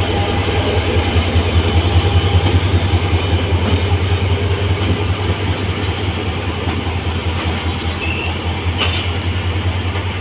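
Diesel engine of a standing train running close by: a steady low drone with a thin high whine over it, easing off slightly as the recorder moves along.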